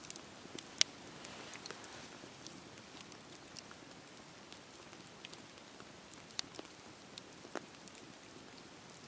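Campfire crackling: a low hiss with scattered sharp pops and snaps, the loudest about a second in.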